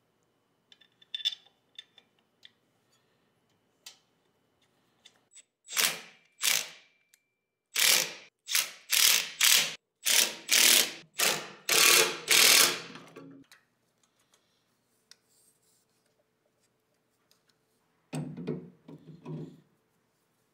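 Ratchet wrench clicking in short back-and-forth strokes as bolts are tightened. Two strokes come about six seconds in, then a run of about eight quick strokes, with a few more near the end. A few light clicks of small metal parts being handled come in the first two seconds.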